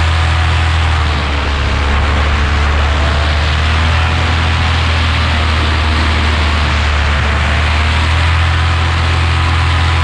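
Paramotor's two-stroke engine and propeller running steadily in flight, a loud low drone whose pitch wavers slightly with the throttle, with wind rushing over the helmet-mounted microphone.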